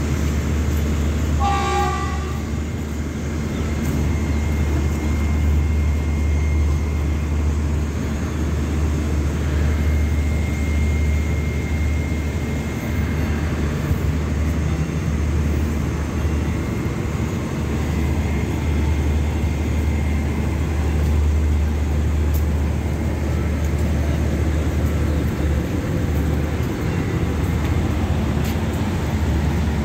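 Steady low diesel hum of a passenger train standing at the platform, with a short high-pitched tone about two seconds in.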